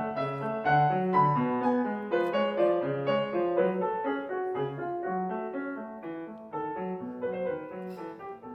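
Background piano music: a solo piano playing a light, flowing melody over a steady accompaniment.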